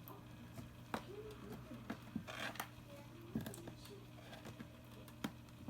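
A Munchkin kitten mews faintly a few times, with scratching and sharp clicks of kitty litter being dug. There is a brief scratchy rustle about two and a half seconds in.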